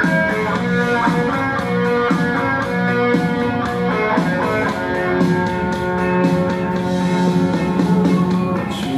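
Instrumental passage of a Mandarin pop song: guitar lines over a steady drum-kit beat, with no singing.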